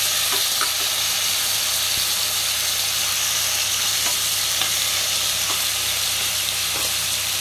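Tomatoes frying in hot tempered oil in a pan: a steady, bright sizzle with a few small clicks scattered through it.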